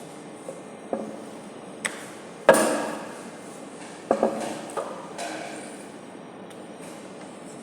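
Kitchen clatter: several separate sharp knocks and clinks of utensils against cookware, the loudest about two and a half seconds in with a brief ring, and two close together a little after four seconds.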